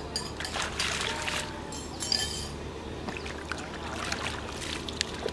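Feet wading through shallow water in a flooded rice paddy, with irregular splashes and sloshes as each foot is lifted and set down.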